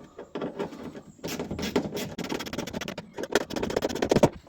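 Irregular clicking and clattering of hand work on a vehicle's aluminium seat box, starting about a second in.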